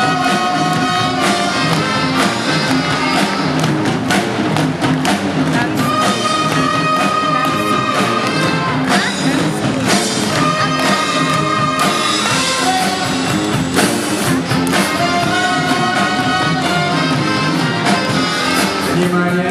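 Instrumental band music with a busy drumbeat under long held melody notes.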